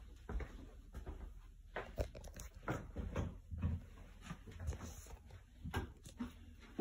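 Footsteps and phone handling noise: irregular soft thumps and light clicks as someone walks into a small bathroom.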